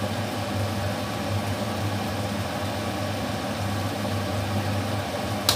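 Steady low mechanical hum of a running kitchen appliance with a light hiss, and a single sharp click near the end.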